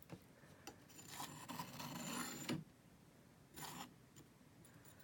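Metal palette knife scraping thick paint across a stretched canvas: one long stroke of about a second and a half, then a short one, with a few light taps of the knife.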